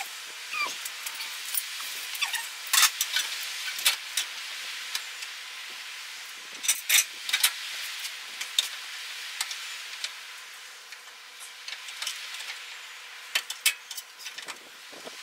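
Irregular metallic clinks and taps from handling parts and tools at a pickup truck's bare rear frame, over a steady hiss.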